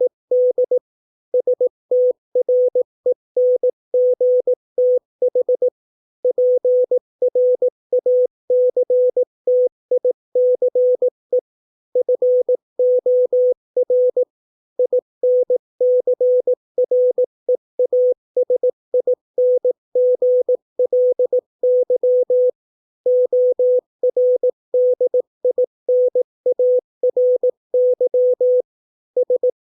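Morse code at 18 words per minute: a single steady tone of about 500 Hz keyed on and off in quick dots and dashes, spelling out English words, with slightly longer pauses between words.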